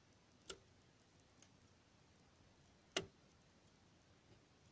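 Near silence broken by two short clicks, about half a second and three seconds in, the second louder: a test probe touching the percussion wiring terminals of a Hammond organ to zap them with 18 V DC.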